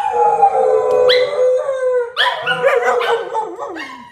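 Dogs howling: long drawn-out cries, a fresh howl starting every second or so, the voices overlapping and the pitch sliding down near the end.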